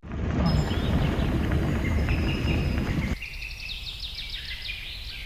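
Birds calling with short, high chirps over a loud low rumble. The rumble cuts off abruptly about three seconds in, leaving a quick run of falling chirps.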